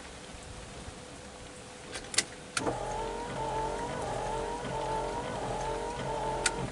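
A small electric motor whining steadily for about four seconds, switching on with a click and stopping abruptly near the end, over a steady background hiss.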